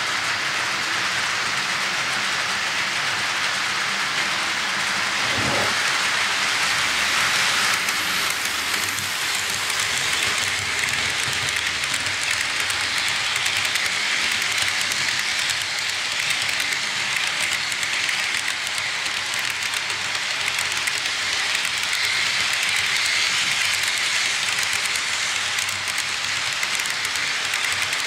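A steady rushing noise, strongest in the upper-middle range, with a brief low sweep about five seconds in.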